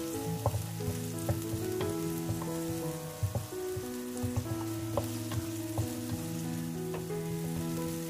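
Blended spice paste sizzling in a frying pan while a wooden spatula stirs it, with repeated sharp clicks and scrapes of the spatula against the pan. Slow background music of held notes plays along.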